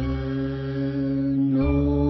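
A woman singing one long held note, accompanying herself on an upright piano, with a new low chord coming in about one and a half seconds in.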